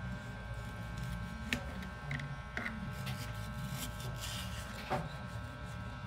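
Kitchen knife cutting a ripe mango on a plastic cutting board, with three sharp knocks against the board, over a steady electrical hum.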